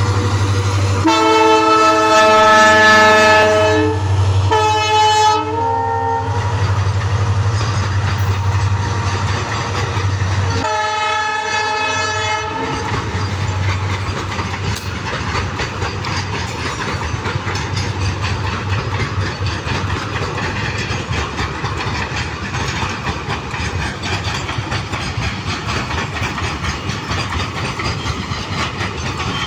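Container freight train rolling past steadily, its wagons running on the rails with a continuous rumble. The diesel locomotive's horn sounds three times: a long blast about a second in, a shorter one around five seconds in, and another about eleven seconds in.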